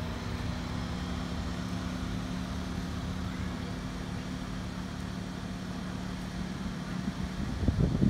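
Steady low mechanical hum with a low rumble underneath, breaking into uneven low thumps near the end.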